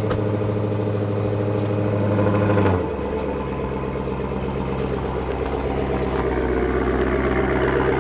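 Dodge Charger SRT Hellcat's supercharged V8 running: a steady idle, a brief rise about two and a half seconds in, then the note drops to a lower, rougher rumble. It builds a little near the end as the car pulls away.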